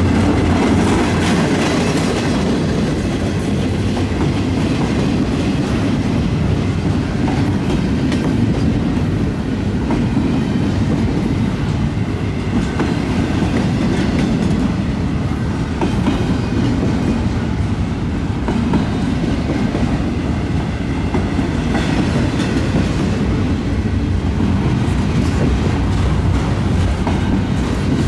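Freight train cars (double-stack well cars, covered hoppers and tank cars) rolling steadily past, their steel wheels on the rails making a continuous rumble.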